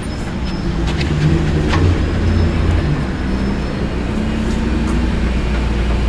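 BMW V8 engine running steadily at idle, a low even rumble with a few faint clicks near the start.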